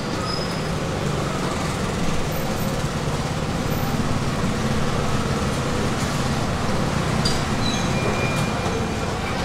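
Steady low rumble and hiss of background noise, with no distinct strokes or knocks standing out from it.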